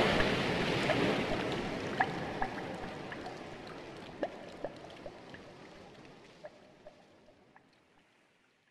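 Splashing water fading out steadily over about eight seconds, with scattered single water-drop plinks that carry on as the splash dies away.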